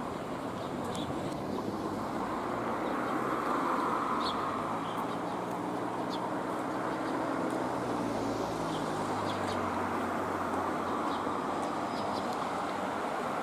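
Train running on the line: a steady rumble with a low motor hum that drops slightly in pitch through the middle seconds.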